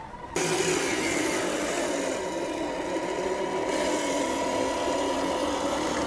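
A 1/10-scale RC crawler's electric motor and gearbox whining steadily at crawling speed, with a grinding rub over it. It starts abruptly just after the beginning.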